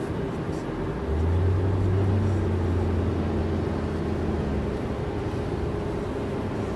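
Road and engine noise inside a car cabin at highway speed: a steady rumble, with a deeper hum that comes in about a second in and drops away about two-thirds of the way through.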